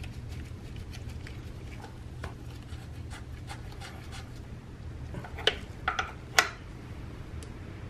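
Small clicks and scrapes of gloved hands fitting a hose clamp and hoses on a car's fuel pressure regulator, with three or four sharper clicks about two-thirds of the way through.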